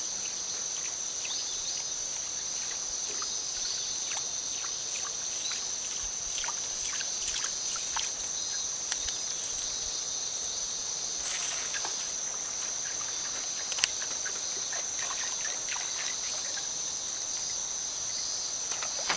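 A steady high-pitched insect chorus, with scattered light ticks and a short burst of rushing noise a little past halfway.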